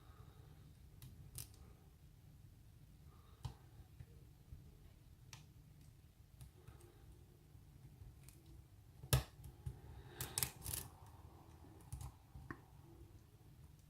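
Lock pick and tension wrench working the pins of a pin-tumbler lock: scattered light clicks, then a cluster of sharper clicks about two thirds of the way through, over a faint low hum.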